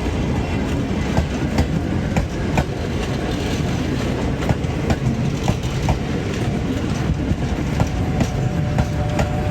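Freight train rolling past at a level crossing: a steady low rumble of wheels on rail with frequent sharp clacks as the wheels cross the rail joints.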